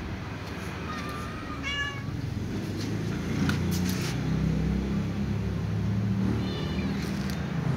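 Calico cat meowing for food: two short meows, one about two seconds in and another near the end, over a steady low rumble.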